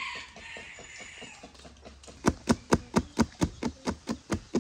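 A wire whisk beating a cream mixture in a plastic bowl: sharp, evenly spaced clicks, about four to five a second, starting about two seconds in. Before that, fainter quick ticking from a dog eating out of a bowl.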